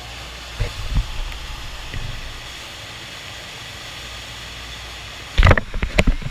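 Steady rush of the FlowRider's thin sheet of water being pumped up over the wave surface, with a couple of soft thumps about a second in. Near the end, loud knocks and rattles as the camera is picked up and handled.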